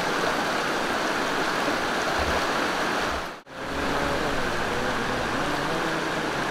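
Mountain stream rushing over rocks: a steady, even water noise, broken by a brief dropout about halfway through.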